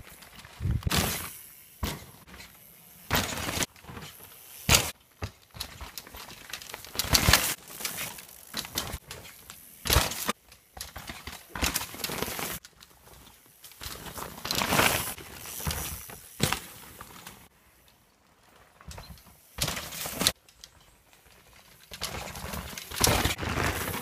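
Mountain bike riding on a dirt trail: tyres on dirt and the bike rattling over bumps, coming in irregular loud bursts with quieter stretches between.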